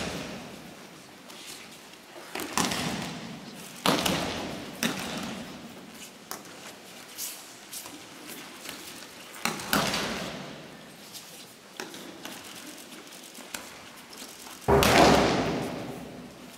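Aikido breakfalls: bodies of attackers thrown onto the tatami mat, landing with a series of thuds and slaps that echo in a large hall, the loudest near the end.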